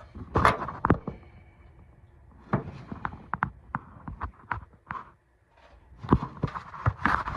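Irregular sharp clicks and knocks from a car battery being set in place and its terminal clamps fitted, loudest about half a second in and again near the end.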